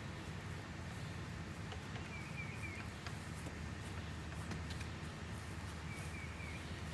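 Outdoor ambience with a low steady rumble, and a small bird giving a short chirping call twice, about two seconds in and again near the end. A few faint scattered clicks.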